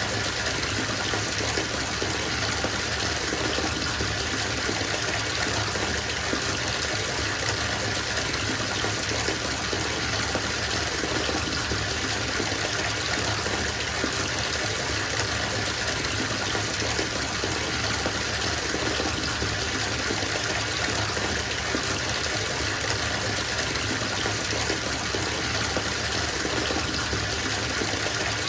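Bathtub tap running full into a filling tub, a steady gushing splash of water that does not change.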